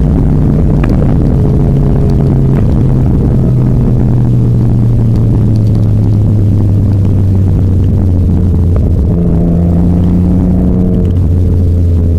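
Nissan Skyline R33 GT-R's RB26DETT twin-turbo straight-six running loud through an HKS Hi-Power exhaust, its drone slowly sinking in pitch. About nine seconds in the pitch jumps up, then drops back about two seconds later.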